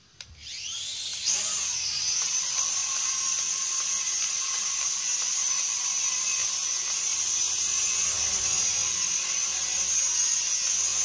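Cheap toy quadcopter's small electric motors and propellers spinning up with a rising whine in the first second, then holding a steady high-pitched whine as it flies.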